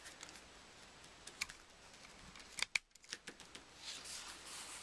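Faint ticks and snaps of playing cards being spread and pushed across a wooden tabletop, with a sharper cluster of snaps about two and a half seconds in and a soft sliding hiss near the end.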